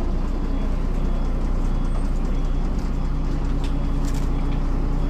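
MAN NL202 city bus's D08 diesel engine running steadily, heard from inside the passenger cabin, with a few light rattles.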